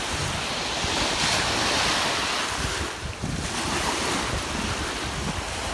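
Ocean surf washing on the shore, with wind buffeting the microphone. It eases briefly about three seconds in.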